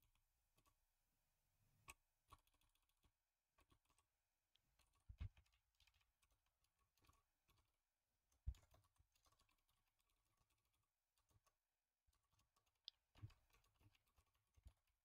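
Faint computer keyboard typing: sparse keystroke clicks, with a few louder knocks about five and eight and a half seconds in and a quick run of keystrokes near the end.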